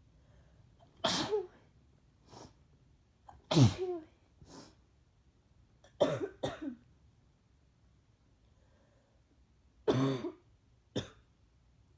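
A person sick with the flu coughing in several separate bouts, each a harsh cough followed by a smaller one, from a congested chest and a very sore throat.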